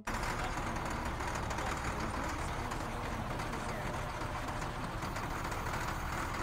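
Motor grader's diesel engine running steadily.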